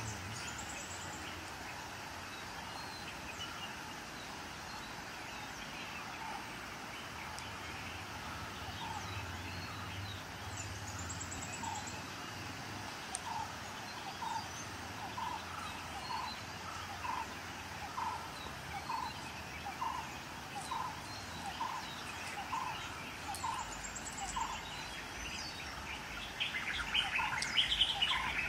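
Forest birds calling over a steady background hiss: from about halfway through, a short note repeats evenly about every two-thirds of a second, and near the end a burst of busier, higher chirping joins in.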